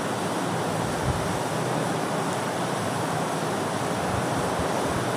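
Steady, even rushing background noise of the room, with a soft low knock about a second in.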